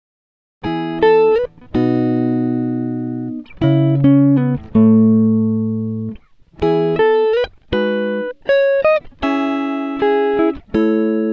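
Background instrumental music of plucked string notes and chords, each note struck sharply and then fading, starting after a brief silence about half a second in.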